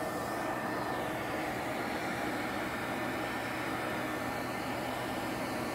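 Pet grooming blow dryer blowing air through a dog's coat, a steady rush of air with a faint high whine.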